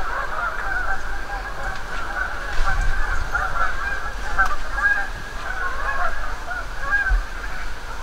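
A flock of geese honking, many calls overlapping in a continuous chatter.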